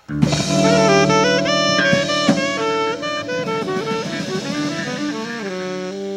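Live jazz combo playing: a melodic line moving in quick steps over held low chord notes, with drum kit hits, coming in suddenly at the start and settling onto a sustained chord near the end.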